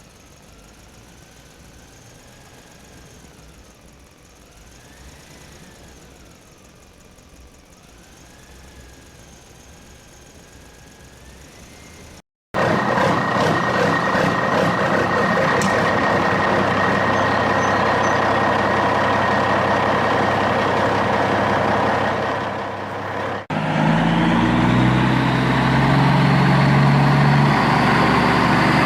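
Radio-controlled construction models running. First a faint motor whine that rises and falls in pitch, then after a cut a much louder rattling mechanical running noise, and after another cut near the end a steady engine-like drone with a slowly rising whine.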